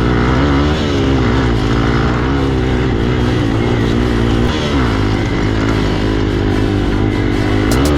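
Hero XPulse motorcycle engine running loud and steady while riding, its pitch rising and falling a little with the throttle.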